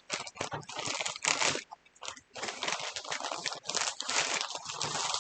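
Packaging crinkling and rustling in irregular crackles as a bag is opened and handled by hand, with a short lull about two seconds in.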